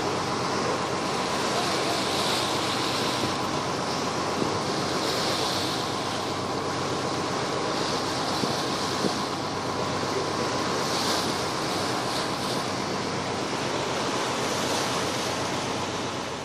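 Steady rush of water along the hull and wind on the microphone as a dive boat cruises over open sea, with the boat's engine humming underneath. The rush swells and eases every few seconds.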